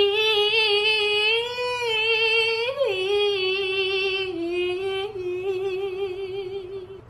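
A high voice holding one long sung note with a wavering vibrato. Its pitch dips briefly about three seconds in and drops a little just past four seconds.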